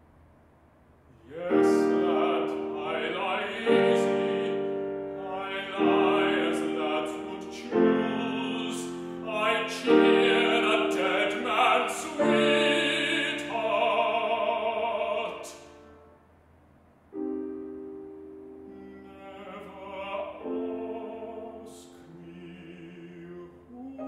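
Baritone singing an English art song with grand piano accompaniment. A loud passage with strongly struck piano chords breaks off about two-thirds of the way through, and the music resumes more softly.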